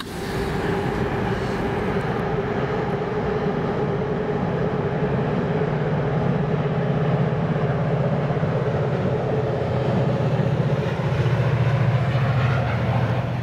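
Bilevel passenger train rolling across a high railroad trestle: a steady rumble of wheels on rails, with a low hum that grows stronger in the second half.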